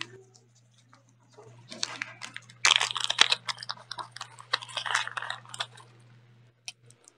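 Small clear plastic zip bag crinkling and rustling in two bouts as it is worked open by hand and a ring taken out, over a faint steady low hum.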